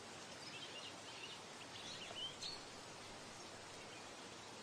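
Faint wild birdsong: scattered short chirps and twitters over a soft outdoor hiss.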